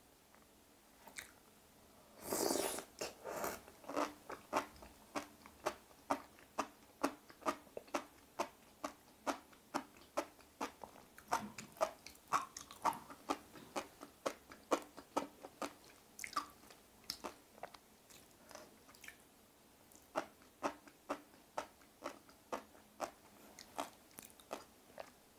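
Close-miked chewing of sea grapes in a creamy sauce: a louder wet bite about two seconds in, then crisp clicks and pops from the little seaweed beads bursting, about two a second, thinning out for a few seconds past the middle before picking up again.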